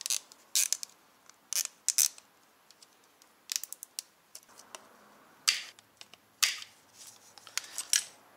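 Nylon zip ties being pulled tight around a halo headlight's wiring: about ten short, sharp zipping rasps spread out, with quiet between.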